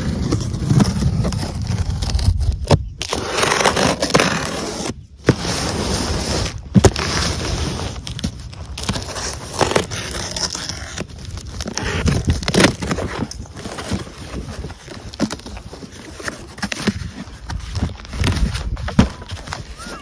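Clear packing tape being peeled and ripped off a cardboard box, with the cardboard crackling and scraping as the flaps are worked open, in irregular bursts with short sharp snaps.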